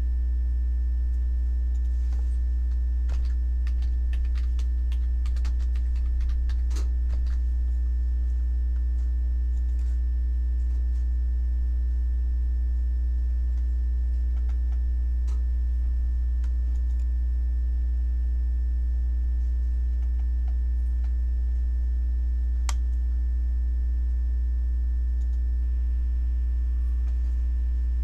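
Steady low electrical hum with fainter steady higher tones, and a run of light computer-keyboard clicks a few seconds in, then a single click near the end.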